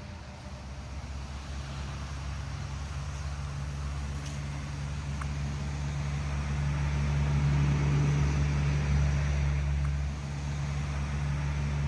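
A motor vehicle passing on a nearby road. Its low rumble and tyre noise grow louder about halfway through, then ease off near the end.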